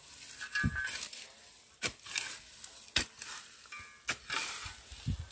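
Shovel digging into soil and grass roots: the blade scrapes and crunches through the earth, with several sharp knocks about a second apart and a couple of dull thuds.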